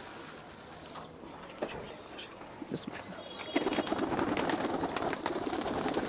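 A flock of pigeons feeding on a concrete floor, with scattered light taps at first. From about halfway, as feed is thrown among them, comes a rush of flapping wings that grows louder near the end.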